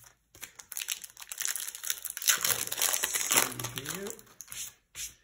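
Trading card booster pack wrapper being torn open and crinkled, a dense crackling that runs for about four seconds.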